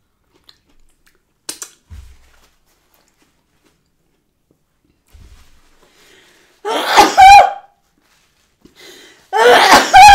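A person sneezing loudly twice, each sneeze preceded by a short breath in, set off by the Cajun seasoning on the food.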